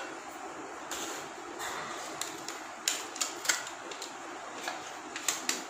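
Irregular clicks and crinkles of an aluminium foil takeaway tray and its paper lining being handled as food is taken out of it.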